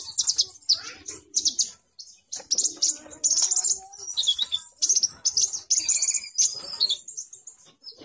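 A caged konin songbird singing steadily, in rapid runs of high chirps and trills with short breaks between them.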